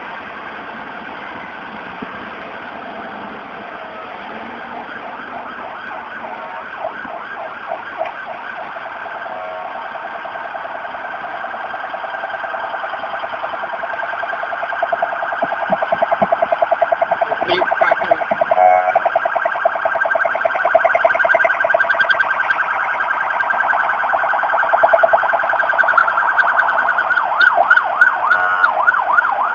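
Emergency vehicle siren warbling rapidly up and down in pitch, growing steadily louder as it approaches.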